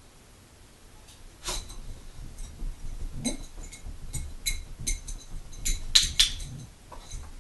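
A dog's front paws and claws clinking and tapping on an upturned dog bowl as it steps around on it. About a dozen sharp, ringing clinks, coming irregularly, loudest near the end.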